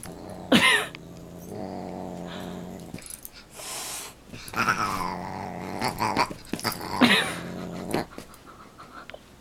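Dog growling during a play fight with a cat, a low steady growl in stretches, with a few short sharp cries over it, the loudest about half a second in and again around seven seconds.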